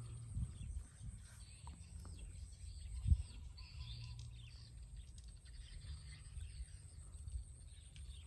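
Rural outdoor ambience: scattered bird chirps over a steady low rumble, with one dull thump about three seconds in.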